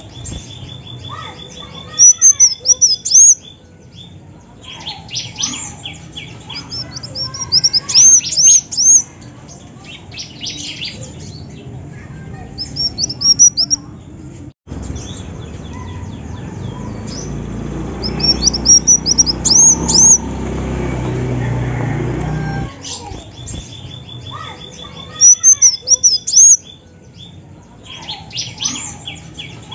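Female kolibri wulung (a sunbird) calling in short bursts of high, thin chirps every few seconds. The bursts are mixed with quick ticking trills.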